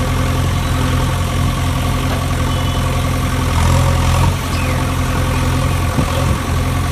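Engine idling sound effect for a toy JCB digger: a steady, even low rumble.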